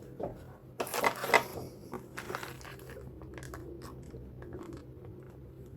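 Handling noise from unpacking: a loud crinkling rustle about a second in, followed by scattered clicks and light knocks, then only a faint steady hum.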